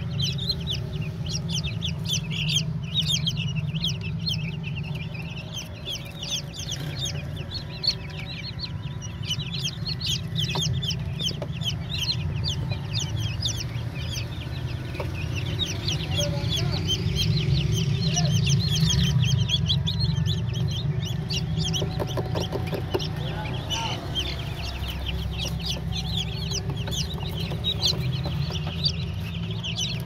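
A group of chicks peeping continuously: a dense stream of short, high peeps over a steady low hum.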